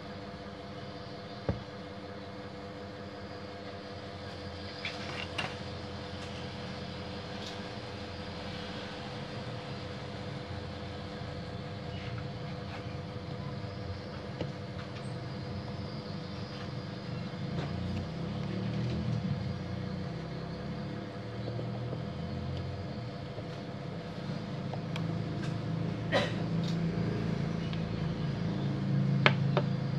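A few sharp clicks and taps of plastic parts being handled on a copier drum unit's end, over a steady hum and a low rumble that swells twice, louder near the end.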